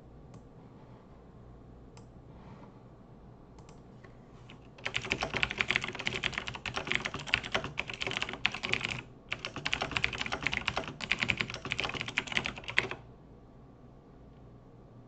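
Fast typing on a computer keyboard, a rapid run of key clicks that starts about a third of the way in, breaks off briefly in the middle, and stops a couple of seconds before the end.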